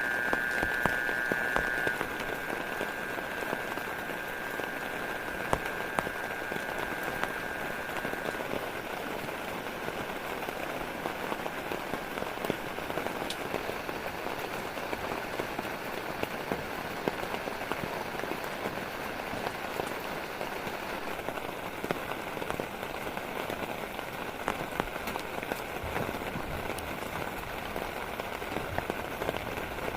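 Steady rain falling, with many separate sharp drop impacts throughout. A steady high tone sounds over it at the start and fades away by about eight seconds in.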